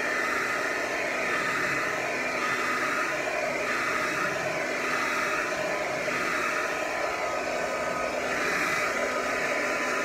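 Handheld hair dryer running steadily, blowing over the hair of a lace-front wig, with a slight slow wavering in its sound.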